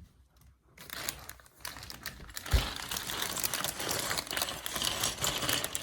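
LEGO set packaging being handled and opened, crinkling and rustling with many small crackles, and a single thump about two and a half seconds in.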